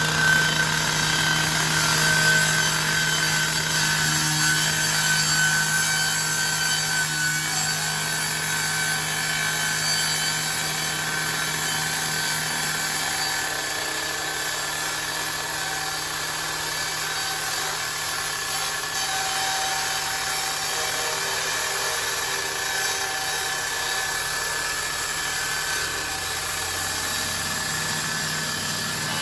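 Power saw running at high speed, cutting through corrugated metal sheet, with a steady engine note. The low part of the note weakens about halfway through and comes back near the end.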